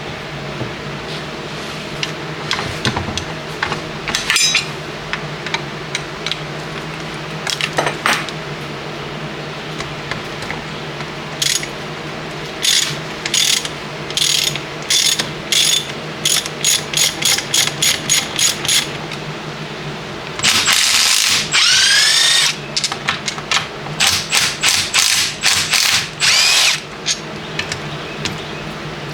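Ratchet wrench clicking in quick runs of strokes, with a power tool spinning up and down for about two seconds partway through, over a steady low hum.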